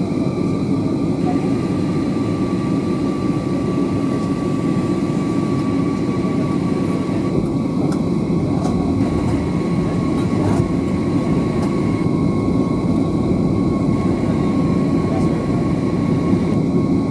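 Cabin noise inside an Airbus A320neo descending on approach: a steady low rumble of jet engines and airflow with a faint, unchanging high whine.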